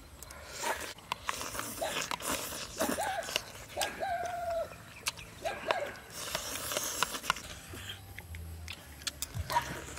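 People eating rice and soup with spoons: spoons clicking against the plates, with mouth noises of chewing and sipping. A few short pitched calls come through in the middle.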